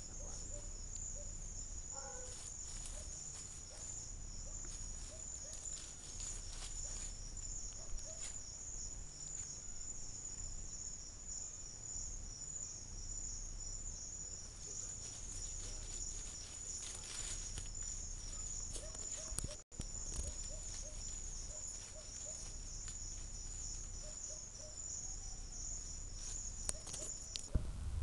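Night insect chorus: crickets trilling in a continuous high, pulsing buzz, over a low rumble, with the sound dropping out for an instant about twenty seconds in.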